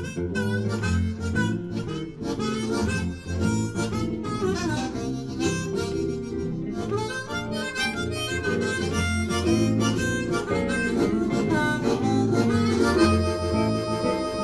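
Blues harmonica solo played cupped to a microphone, with bending, sliding notes over a bass guitar and guitar backing; near the end it settles into one long held note.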